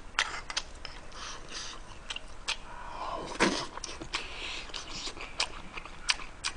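Close-up mouth sounds of a man chewing a spoonful of rice mixed with kimchi stew, wet smacks and scattered sharp clicks, with one short falling sound about three and a half seconds in.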